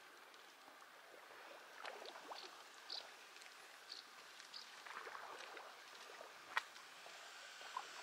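Faint lake water lapping against a rocky shore, with a few short high chirps and one sharp click about six and a half seconds in.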